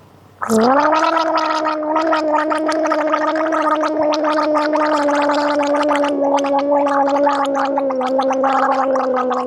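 A woman gargling a mouthful of salt water, voicing one long steady 'aa' through it with rapid bubbling. It starts about half a second in, sinks slightly in pitch near the end, and stops abruptly.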